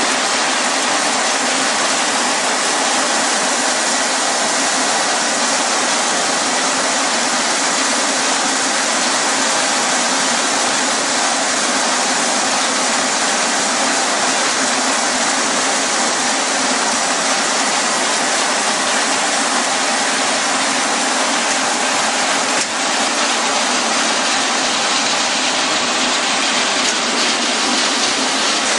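Puffed corn snack processing machinery running: a loud, steady, even hiss-like machine noise from the extruder line, with a faint steady whine running through it.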